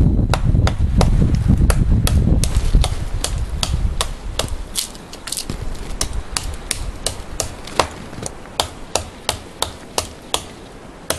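A Buck 119 fixed-blade knife chopping into the trunk of a standing dead tree, a steady run of sharp blade-on-wood strikes about two and a half to three a second. A heavy low rumble covers the first few seconds and fades out about four seconds in.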